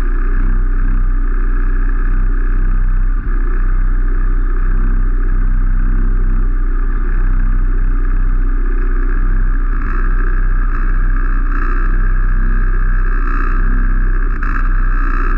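Small racing minibike engines idling steadily on the start grid, heard close up from on board while waiting for the race start.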